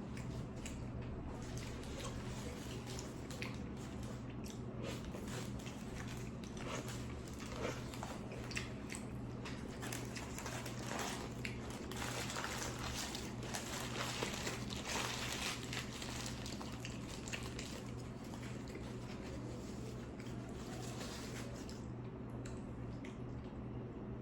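A person biting and chewing a Subway tuna sandwich with lettuce and pickles, close to the microphone, with many crisp crunches that grow sparse near the end. A steady low hum runs underneath.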